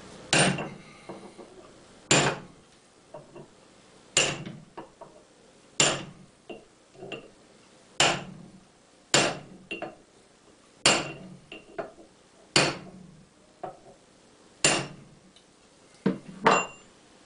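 A hammer driving steel taper pins home through a steel drift, locking a shrink-fitted alloy steel hub into the original hub. About ten heavy metallic blows come a second or two apart, with lighter taps between them and a brief ring after several.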